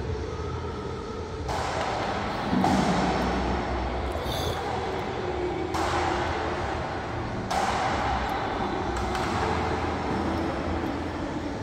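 Steady low hum with a rushing noise that comes in about a second and a half in and swells and drops several times.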